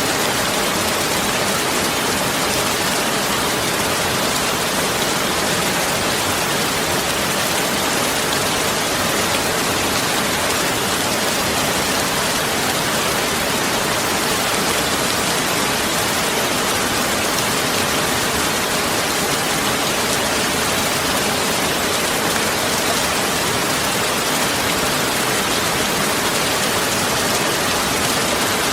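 Heavy rain falling steadily, a dense even hiss with no breaks or single events.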